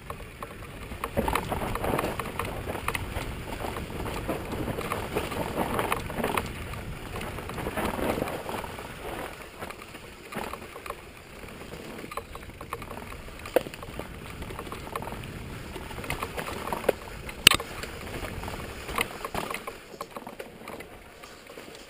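Mountain bike riding fast down a dirt forest trail: tyres running over the packed earth and the frame rattling over bumps, with scattered knocks throughout and one sharp crack late on.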